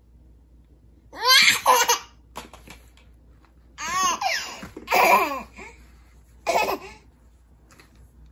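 Nine-month-old baby laughing in four high-pitched bursts of giggles, separated by short pauses.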